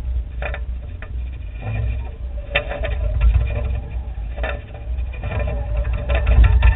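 Wind and rotor wash buffeting the microphone of a camera carried on a hovering remote-controlled aircraft: a fluttering low rumble with a faint motor hum and a few sharp crackles.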